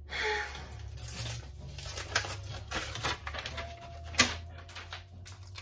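Handling of thin backsplash tile sheets: paper-like rustling and crinkling, then a run of irregular clicks and taps. The sharpest snap comes about four seconds in. A low steady hum runs underneath.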